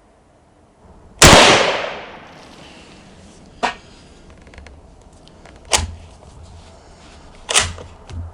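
A single shot from a Yugoslavian M48 Mauser bolt-action rifle firing 8mm surplus ammunition: one sharp, loud report about a second in, with a tail that dies away over about a second. Four fainter sharp cracks or knocks follow over the next several seconds.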